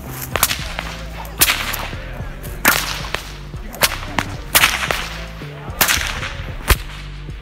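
An 8-foot, 12-plait David Morgan bullwhip cracked repeatedly: about seven sharp cracks, roughly one a second.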